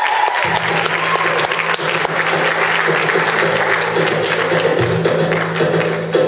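Audience applauding over music; a low held tone in the music comes in about half a second in.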